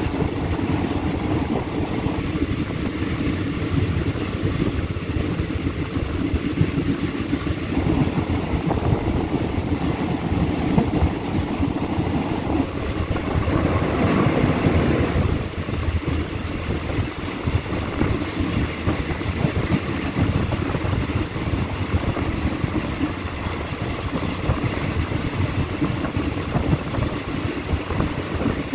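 Express passenger train running, heard from inside the carriage: a steady rumble and clatter of wheels on the rails, swelling briefly about halfway through.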